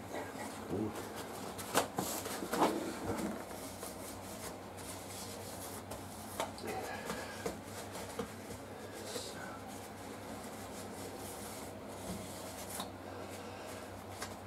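Hand tools being worked on a motorcycle's rear chain adjuster: a few sharp clicks and knocks in the first three seconds, then scattered light clicks and rubbing over a steady low hum.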